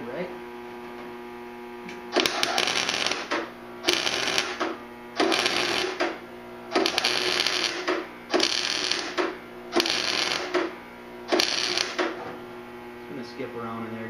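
Wire-feed welder laying seven short welds, each about a second of arc noise, while welding a seat-belt anchor in place. A steady electrical hum runs underneath.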